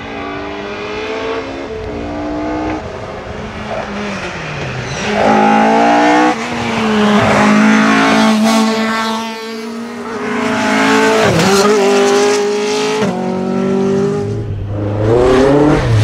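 Mk2 Ford Escort rally car's engine revving hard as it climbs through the gears, the pitch stepping down at each gear change and easing off into corners as the car comes closer and passes. Another rally car's engine comes in near the end.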